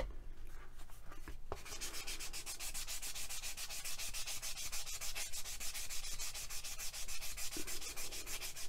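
Micro-fine foam-backed sanding pad rubbed quickly back and forth over a wet polymer clay piece in an even rhythm of about six strokes a second, starting about a second and a half in. This is the final, finest stage of wet sanding.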